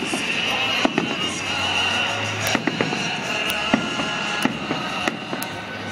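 Fireworks display going off in many sharp bangs and cracks at irregular intervals, over a continuous background din.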